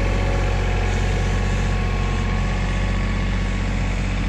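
LS compact tractor's diesel engine running steadily at idle, its low pitch holding even with no revving.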